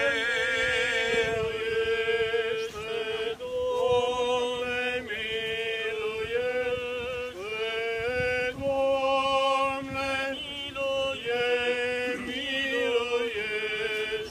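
Eastern Orthodox liturgical chant: a sung response to the priest's litany petition, in slow held notes. A lower voice holds a steady note under the melody in places.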